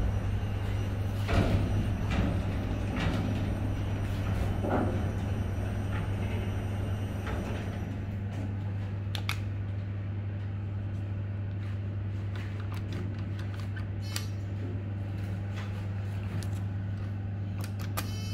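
Steady low hum inside a 1988 KONE cargo elevator car, with scattered clicks and clunks from the car doors and buttons.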